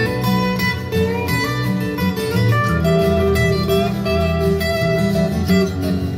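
Instrumental passage of a song led by strummed acoustic guitar over a bass line, with no vocals, played back through Canton LE 500 loudspeakers driven by a Denon PMA 1080R amplifier.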